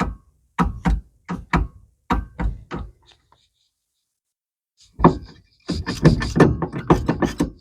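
Rapid series of knocks and clunks from the motorhome's steering column as the newly fitted ignition switch is tried out: about three a second at first, then a denser run a couple of seconds later.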